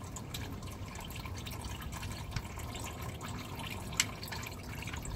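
Engine oil dripping and trickling from the car's drain into a catch pan, over steady wind noise, with a sharp click about four seconds in.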